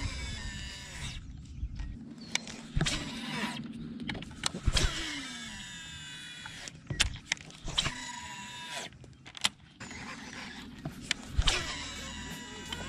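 Baitcasting reel whirring in short runs as the line is cast and reeled in, the pitch rising and falling with each run. Sharp knocks from handling the rod come in between.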